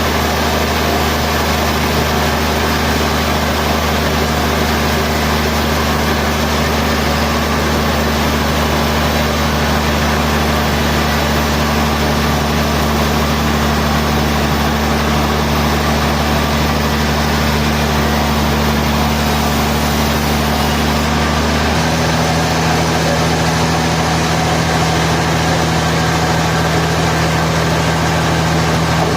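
Sawmill machinery running with a steady low, humming drone over a noisy hiss. About two-thirds of the way through, the hum abruptly changes to a slightly different pitch.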